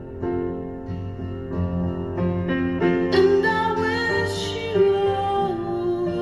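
A soft piano ballad: sustained piano chords, with a woman's voice singing a held, wavering melody line from about three seconds in.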